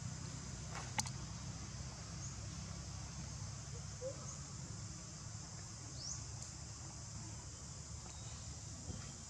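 Steady high-pitched drone of insects over a low rumble, with a sharp click about a second in and a brief rising chirp later on.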